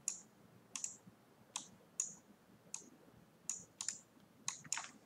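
Faint computer mouse clicks: about ten light, sharp clicks at uneven intervals, a few of them in quick pairs.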